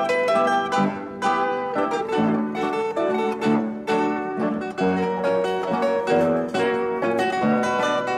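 Background music: a plucked string instrument playing a quick run of picked notes.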